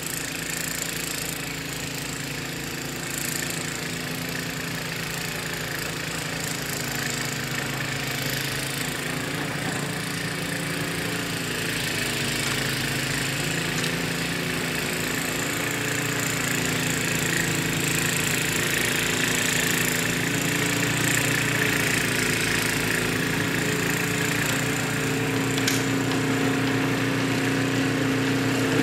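Tecumseh 4 hp HSSK40 Snow King single-cylinder four-stroke engine on a Troy-Bilt snowblower running steadily under load while the auger and impeller throw snow, on a freshly rebuilt carburetor. It grows slowly louder as the machine comes closer.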